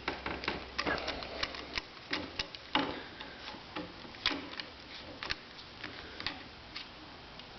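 Phillips screwdriver turning out the Pozidriv screws of a ski binding's brake assembly: an irregular run of small clicks and ticks, a few a second, as the bit works in the screw heads.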